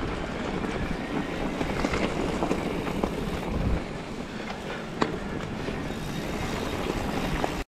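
Ride noise from an electric mountain bike on a rough gravel track: wind buffeting the handlebar camera's microphone over tyre and frame rattle, with a sharp knock about five seconds in. It cuts off suddenly near the end.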